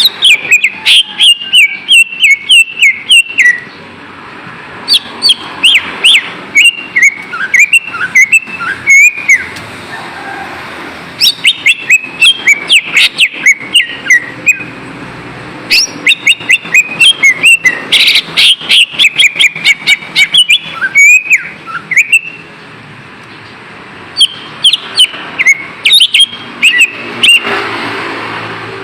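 Cucak ijo (green leafbird) singing in fast runs of sharp chirps and quick slurred whistles, with a few short pauses.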